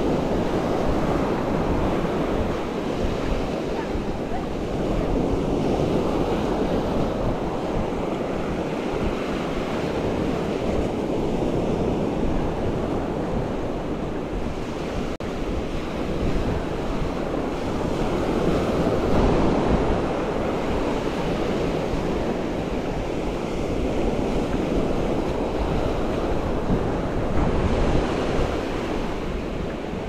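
Ocean waves breaking and washing on a sandy shore in strong wind, the surf swelling louder every several seconds, with wind buffeting the microphone.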